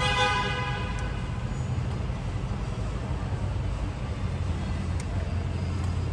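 Ford F-150 engine idling with a steady low hum. At the start a brief ringing tone sounds and fades within about a second.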